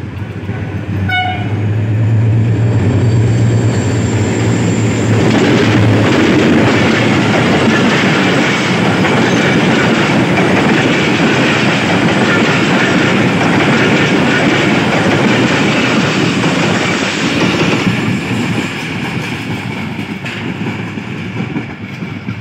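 Pakistan Railways HGMU-30 (GE U30C) diesel locomotive and its passenger coaches passing close by at speed. A deep engine drone for the first few seconds as the locomotive goes by, then a loud steady rush and clatter of the coaches' wheels on the rails, easing off near the end as the train moves away.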